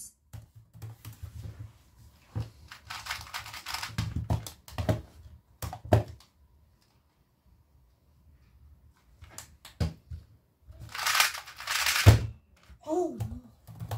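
A 2x2 speedcube being turned quickly by hand: fast clicking clatter in two bursts, one a few seconds in and one near the end, with single knocks of the cube against the mat or timer between them and a loud knock just after the second burst.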